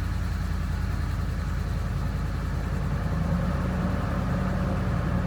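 Ford 7.3-liter "Godzilla" gas V8 idling steadily, just started on fresh oil after an oil change.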